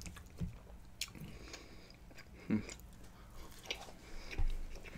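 A person chewing a mouthful of fries close to the microphone, with scattered small mouth clicks and a couple of louder chews about two and a half seconds in and near the end.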